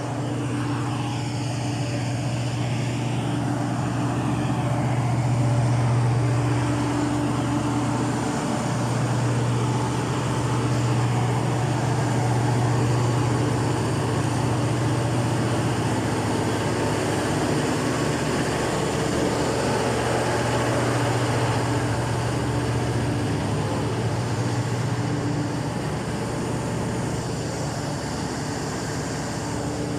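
Cummins KTA50 16-cylinder diesel engine running steadily on a test run after a general overhaul, with a deep, even hum.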